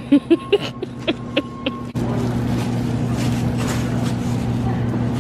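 Steady low hum and hiss of a large store's background, starting with a cut about two seconds in. It follows a few short, separate pitched blips.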